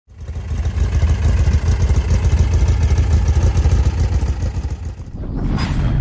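A car engine running with a loud, rapid low pulsing of exhaust beats. It drops away briefly about five seconds in, with a short rising rush near the end.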